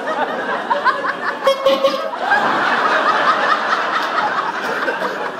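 Audience laughing, many people chuckling at once with chatter mixed in, the laughter swelling about two seconds in.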